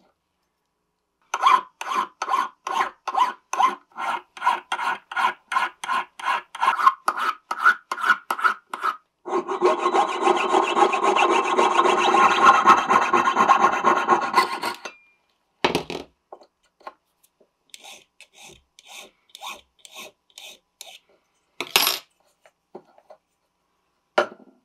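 Rasping hand-tool strokes on a small jewelry piece braced against a wooden bench pin: steady back-and-forth strokes about three a second, then several seconds of continuous rasping, then lighter, quicker strokes broken by a few sharp knocks.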